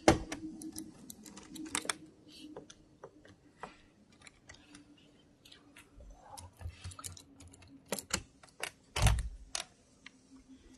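A series of clicks and knocks from the door of a pizza vending machine being unlocked and opened, with a loud knock at the start and a heavy thump about nine seconds in, over a faint steady hum.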